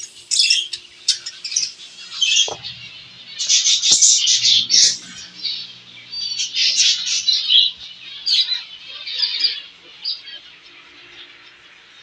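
Several zebra finches calling: short, high chirps in quick runs, busiest about four and seven seconds in.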